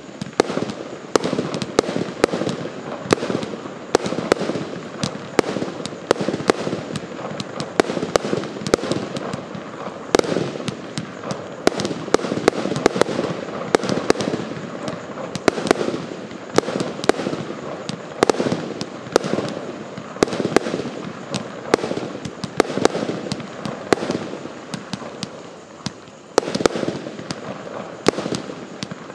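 A 100-shot 0.8-inch consumer firework cake firing in a rapid, unbroken barrage: sharp bangs about twice a second over a dense rush of smaller pops and hiss from the launches and breaks.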